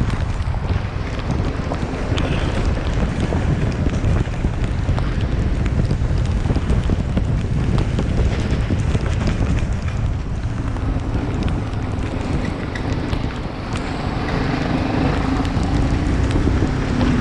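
Wind buffeting the microphone in a heavy, steady low rumble. A low steady hum joins about ten seconds in and carries on to the end.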